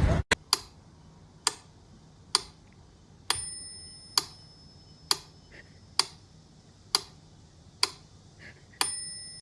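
A steady series of sharp ticks just under a second apart. Two of them, about a third of the way in and near the end, ring briefly with a bell-like tone.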